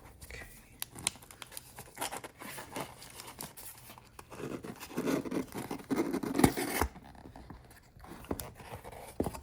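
A folding knife's blade slicing through packing tape on a cardboard box, then the box being opened and its packaging handled: irregular scratching, tearing and rustling with sharp clicks, busiest past the middle.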